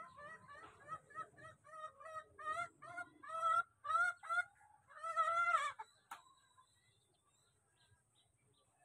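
A chicken clucking: a run of short calls, about three a second, that grows louder and ends in one longer, drawn-out call about five seconds in. A single sharp click follows, and the rest is quiet.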